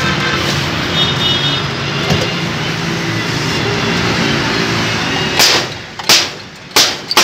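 Steady noise of road traffic and street bustle, then near the end four sharp cracks in quick succession from glass soda bottles being handled at the stall.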